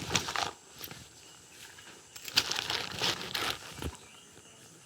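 Irregular rustling and scuffing noises, one cluster just after the start and another about halfway through.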